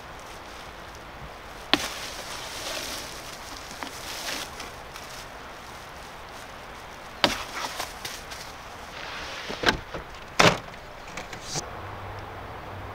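Gear being handled at a car's open tailgate: sharp knocks and clatters, one about two seconds in and a cluster between about seven and eleven seconds, over a steady outdoor hiss.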